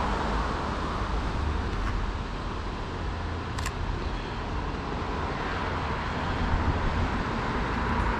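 Steady outdoor background noise with wind rumbling on the microphone, and a single sharp shutter click from the Sony a6400 mirrorless camera a little over three and a half seconds in.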